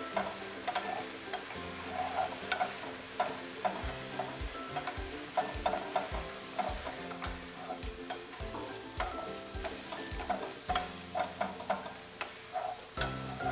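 Diced jamón serrano, onion and mushroom stems sizzling in a very hot frying pan while two wooden spatulas stir and scrape through them, giving an irregular run of short scrapes and clicks over a steady hiss. Soft background music plays underneath.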